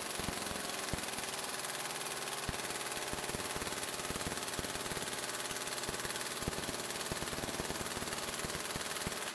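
Matco pneumatic impact wrench hammering continuously through a universal impact socket into a torque tester: a steady rattle of rapid blows that cuts off sharply near the end.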